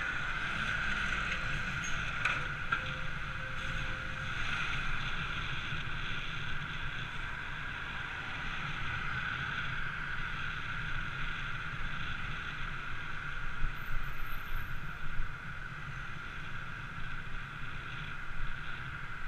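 Steady rushing wind and road noise from riding along a city road, with a low rumble underneath.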